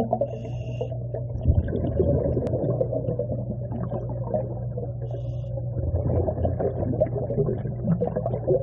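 Underwater sound of scuba breathing in a swimming pool: a steady low hum under a dense crackle of exhaled bubbles, with a short high regulator hiss on an inhale about half a second in and again about five seconds in.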